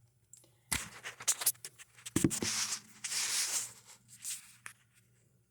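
Handling noise close to the microphone: a run of taps and knocks, one heavier thump, then rustling and rubbing, with a couple more taps near the end.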